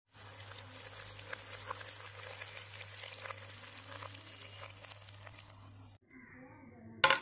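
Mussels frying in hot oil in a pan, a steady sizzle with dense crackling and popping that drops away about six seconds in. A brief, louder knock comes near the end.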